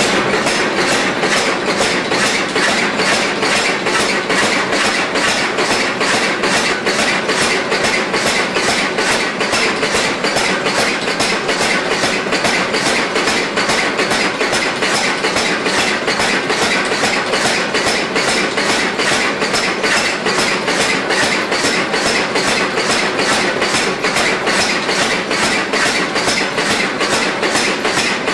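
Hammer blows forging steel in a steady, machine-even rhythm of about three a second, over a continuous noisy bed.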